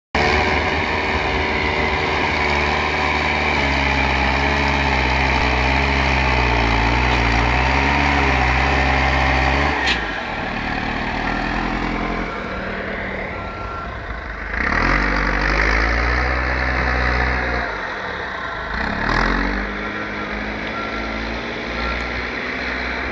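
Diesel engine of a backhoe loader with a front snow plough blade, running under load as it pushes snow. It is loud for the first ten seconds, then a little quieter, with the revs rising and falling twice in the second half.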